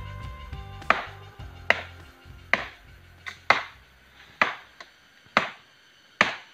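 A parang (machete) chopping into a standing tree trunk: about seven sharp strikes, roughly one a second, biting into the green wood to fell it.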